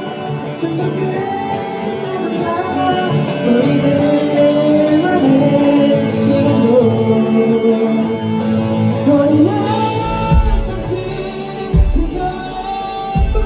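Live rock band performance with singing over guitars. A heavy kick drum beat comes in near the end.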